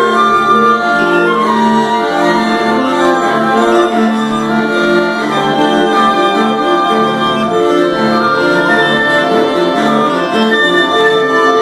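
Instrumental ensemble music: bowed strings playing sustained, overlapping notes that shift in slow steps.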